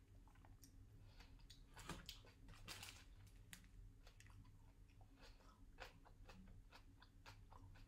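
Faint chewing of a mouthful of triangle kimbap (rice and tuna mayo wrapped in seaweed): soft, irregular wet mouth clicks and crackles, a little louder about two to three seconds in.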